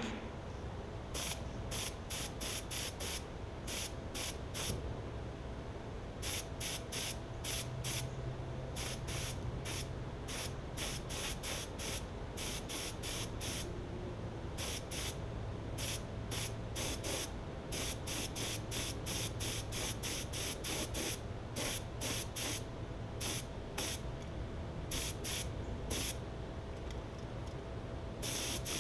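Compressed-air paint spray gun hissing in many short bursts, a few each second, as the trigger is pulled and released while paint is sprayed onto parts.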